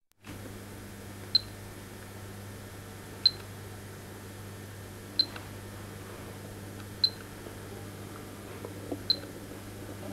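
Steady low electrical hum with a short, high-pitched beep repeating about every two seconds, five times.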